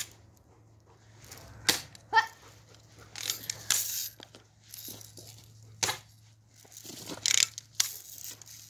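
A BB gun fired several times, each shot a sharp crack, a second to a few seconds apart, one followed by a brief metallic ring. Between the shots there is rustling handling noise.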